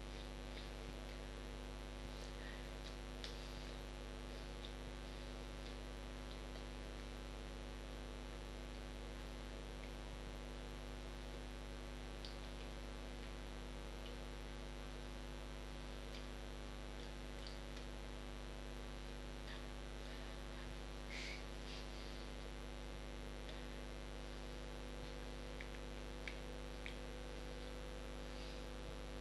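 Steady electrical mains hum, a stack of unchanging tones, with a few faint ticks now and then.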